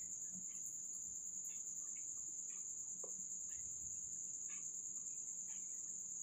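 Chicken balls deep-frying in oil, with faint scattered pops and ticks as they are turned with a spoon, under a steady high-pitched tone.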